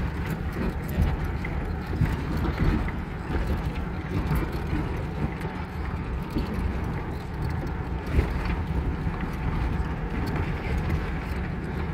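Fiat Panda 4x4 driving downhill on a rough green lane: a steady low rumble from the engine and tyres, with irregular knocks and clatter over stones.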